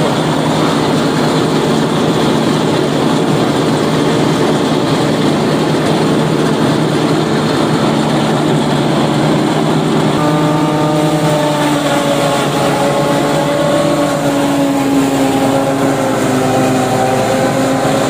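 Tractor engine driving a Fimaks MC10X single-row forage harvester as it cuts and chops standing corn for silage, a loud, steady mechanical running. About halfway through, a higher whine sets in and slowly drops in pitch.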